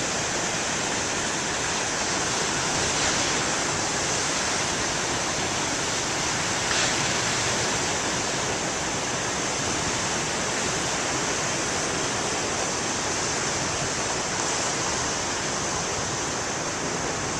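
Steady rush of surf from big waves breaking on the shore, an even wash of water noise with no sharp separate crashes.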